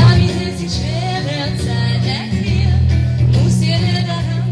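A song sung by singers into microphones over instrumental accompaniment with steady low bass notes.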